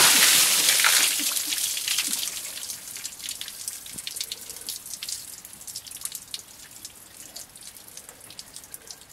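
A load of water dumped over a person: a loud rushing splash in the first second or so, thinning into scattered drips and trickles running off them onto the alley floor and fading away over several seconds.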